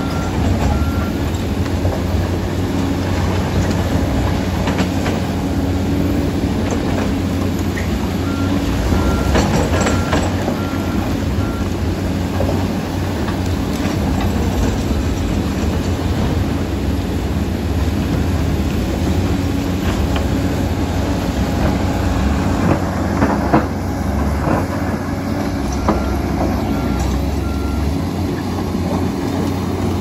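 Heavy crawler dozer's diesel engine running steadily, with the clank of its steel tracks and rock being shoved, and a few sharp clanks a little after twenty seconds in. A reversing alarm beeps in short runs: at the start, around ten seconds in and near the end.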